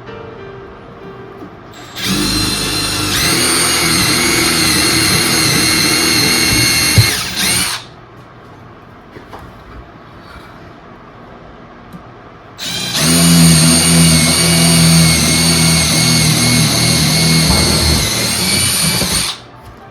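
Power drill boring holes into 2x4 wood: two long runs of a steady whine, each about five to six seconds, with a pause between them.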